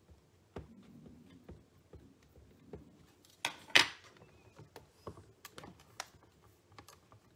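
Light taps and clicks of an ink pad dabbed onto a rubber stamp on a stamping tool's clear plate, with a sharper plastic click about halfway through as the pad is set down. Near the end come more small clicks and knocks as the hinged plate of the Stamparatus is lowered to stamp.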